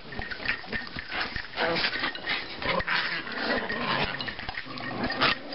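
Several Chihuahuas play-fighting together, with short dog vocalizations and quick scuffling sounds throughout.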